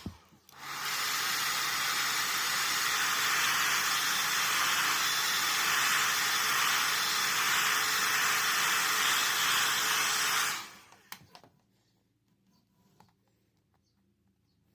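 Heat gun blowing steadily for about ten seconds, switching on just under a second in and cutting off near the end, heating the phone's back glass to soften its adhesive.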